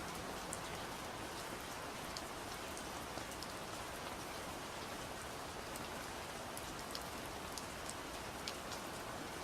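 Steady, gentle rain falling on a surface, an even hiss with scattered small drop ticks.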